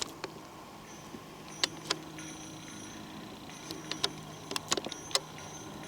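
A few sharp clicks and snaps, scattered, with a quick cluster of them in the second half, over a faint steady hum.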